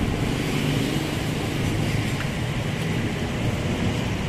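Steady low rumble of road traffic and running vehicle engines.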